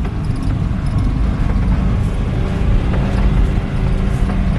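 Suzuki Samurai 4x4's engine running steadily as the vehicle drives on, a dense low rumble.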